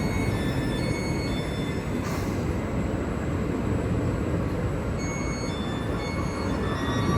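A train running in the station: a steady low rumble from the train, with short high-pitched electric tones coming and going over it.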